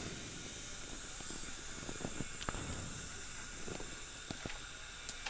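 Faint steady hiss with a few light, scattered clicks.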